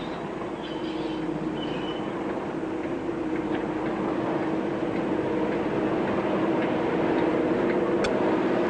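Class 37 diesel locomotive's English Electric V12 engine running as it draws alongside, a steady drone that grows louder as it approaches. A brief sharp click sounds near the end.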